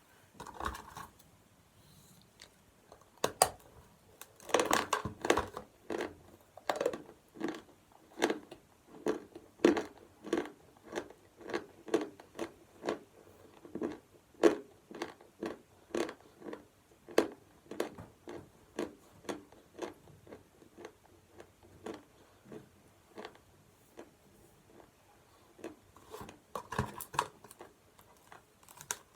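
A person biting into and chewing lumps of edible chalk: sharp crunches, a dense burst of them about five seconds in, then steady chewing a little over once a second, a short lull, and a few more crunches near the end.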